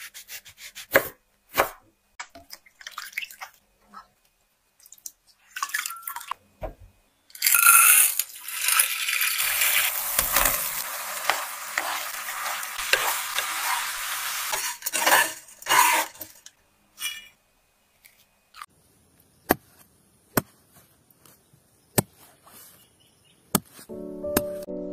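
Knife cutting pomelo peel pith on a wooden cutting board in separate sharp strokes. After about seven seconds comes a steady hiss of water boiling hard in a pan as the peel pieces are poured in and stirred with a wooden spatula, lasting about nine seconds. A few light clicks follow, and music starts near the end.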